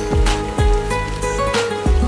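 Background music with a steady beat: sustained pitched tones over a thumping low drum about twice a second.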